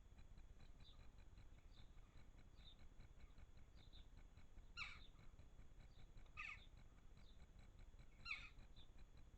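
Birds calling: three short, harsh calls under two seconds apart, over a faint high chirp that repeats about once a second.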